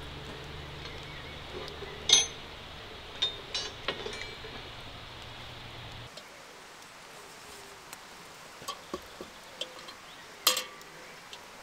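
Metal clinks and knocks of a camp cooking pot being handled as it is lifted off a campfire. There is a sharp clink about two seconds in, a few lighter ones after it, and another loud clink near the end.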